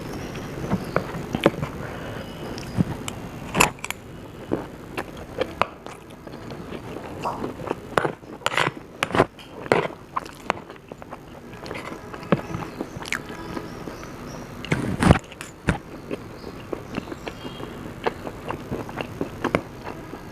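Close-up eating sounds: chewing and crunching of fried sabudana vada, khichdi and chillies, a run of irregular crisp clicks and smacks with a denser patch about eight to ten seconds in and the loudest crunch about fifteen seconds in.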